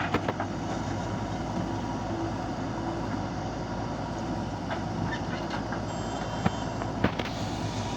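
Heavy diesel engine of earth-moving machinery running steadily, with a few sharp metallic knocks, two of them near the end.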